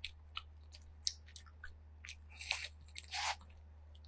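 Close-miked eating of breaded fried seafood cheese balls: a run of sharp bites, crunches and mouth clicks, busiest near the end.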